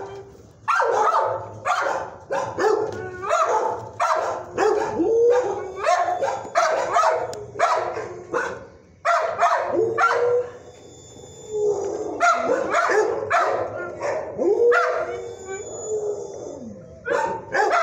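Shelter dogs barking over and over in quick runs, mixed with short howling notes that rise and fall, in a hard-walled kennel. There is a brief lull a little past the middle.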